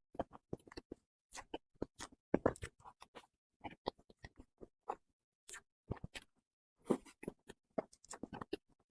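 Close-miked mouth sounds of someone eating cream cake: soft, wet chewing smacks and small clicks in irregular clusters with short pauses between.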